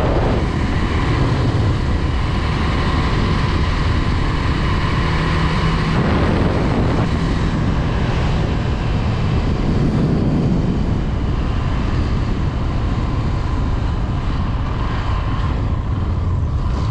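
Honda Twister 250's single-cylinder engine running steadily while the motorcycle is ridden along, with wind noise over the microphone.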